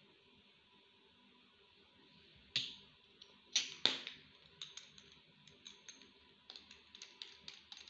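Light plastic clicks and knocks from a fondant extruder being handled and fitted together. They start about two and a half seconds in with a few sharper knocks, then turn into a run of small quick clicks, about four or five a second.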